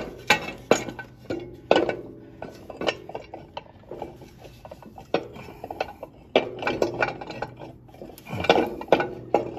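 Heavy metal brake cover on a Farmall 450 tractor being worked by hand over the brake disc, clinking and clanking against the housing and the parts inside. The clinks come at irregular intervals and ring briefly.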